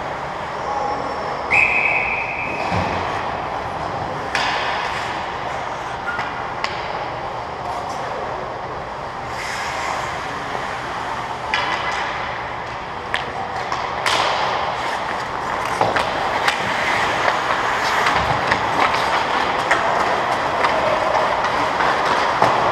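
Ice hockey play in an echoing indoor rink: skates scraping and carving on the ice, with sharp knocks of sticks and puck throughout, the sharpest about fourteen seconds in. A brief high steady tone sounds about a second and a half in.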